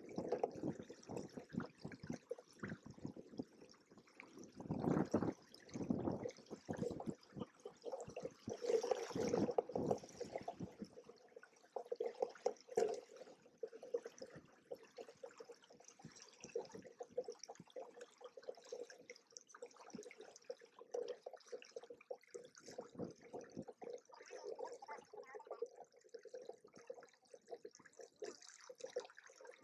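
Water splashing and gurgling against the hulls of a Hobie Cat 16 catamaran, in irregular surges, louder around five and nine seconds in, then a steadier wash.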